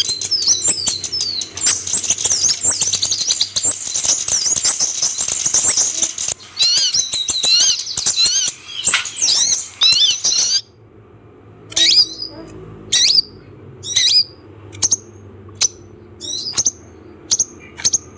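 Van Hasselt's sunbird (kolibri ninja) calls: dense, overlapping high twittering chirps for about the first ten seconds. Then it cuts off suddenly to sparse single sharp chirps, each sweeping downward, about one or two a second.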